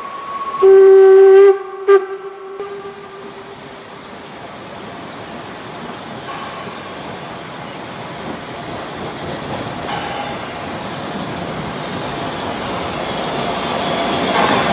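Narrow-gauge steam locomotive's whistle: one long, very loud blast about half a second in, then a short second blast. The train's running noise follows, growing steadily louder as it approaches.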